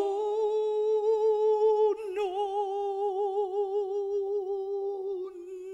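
A male tenor voice holding one long, high sung note in a musical-theatre song. It is steady at first, then wavers with vibrato after a slight break about two seconds in.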